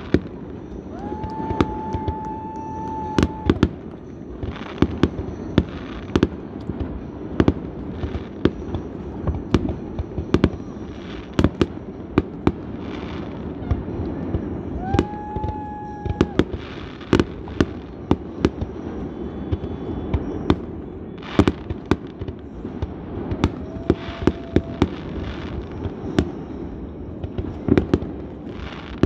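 Fireworks display going off across a lake: aerial shells launching and bursting in an irregular string of sharp bangs, a couple a second at times, over a steady background noise. A few held tones, each a second or two long, sound early on, midway and near the end.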